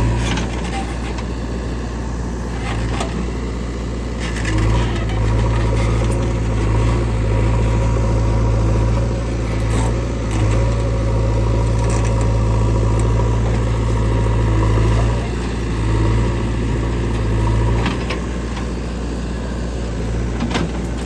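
Heavy diesel engine of a JCB 3DX backhoe loader running steadily while working, swelling louder every few seconds, with a few sharp clunks.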